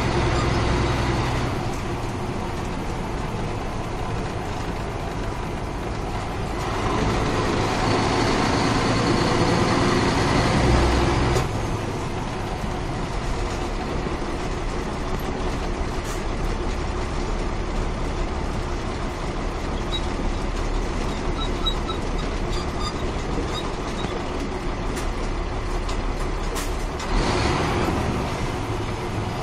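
Caterpillar 3406 inline-six diesel of a 1994 Ford L9000 truck running under way, heard from the cab. It grows louder and pulls harder from about seven to eleven seconds in, drops back suddenly, then swells briefly again near the end.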